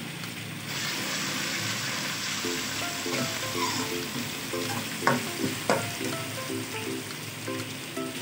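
Chopped onions and ginger-garlic paste sizzling in hot oil in an aluminium kadhai while being stirred with a steel ladle. The sizzle swells louder about a second in, and the ladle knocks sharply against the pan twice around the middle.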